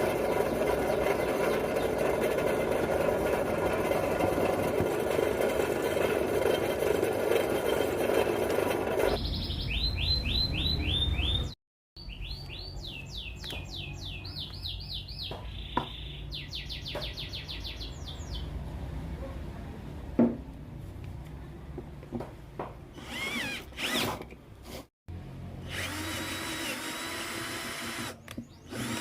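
Electric power drill running steadily while working steel. After a cut come a run of short high squeals and scattered clicks.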